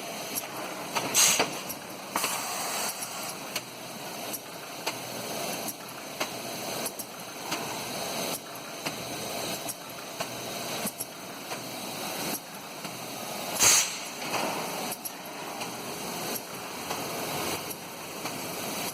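Rotary screw air compressor running steadily, with scattered clicks and two louder sharp knocks, one about a second in and one near fourteen seconds in.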